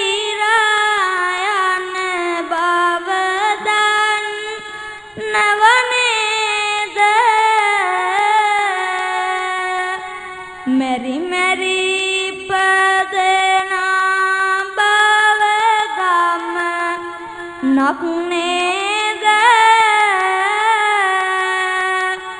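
A young Buddhist novice monk chanting kavi bana, Sinhala sermon verse sung in a high child's voice. The notes are long and held, with ornamented turns, and there are short breaths between phrases.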